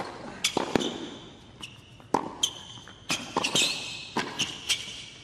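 A hard-court tennis rally: a serve and then racket strikes and ball bounces come as sharp cracks every half second to a second, with short high rubber shoe squeaks on the court surface in between.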